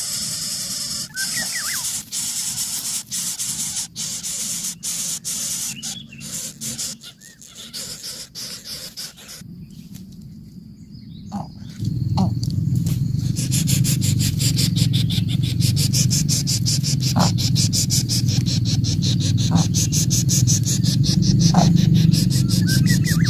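Greater coucal nestlings making a rapid, pulsing hiss in the nest, with a few short chirps. About halfway through a steady low rumble sets in under it.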